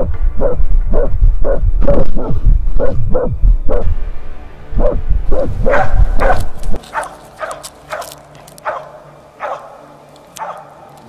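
Plott hound baying a brown bear: loud, rapid barks, about two or three a second, over a heavy low rumble. About seven seconds in, the barking drops to fainter, more widely spaced barks.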